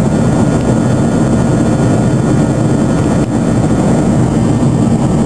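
Steady cabin roar of a Boeing 737-200 Advanced in flight, heard from inside the cabin: the Pratt & Whitney JT8D turbofans running together with the rush of air past the fuselage.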